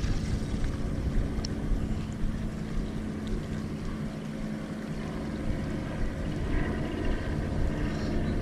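Motorboat engine droning steadily, a low hum.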